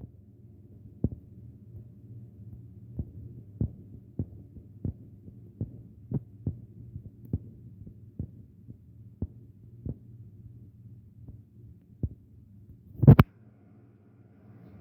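A steady low electrical hum with soft, irregular clicks about once or twice a second, and one louder knock about thirteen seconds in.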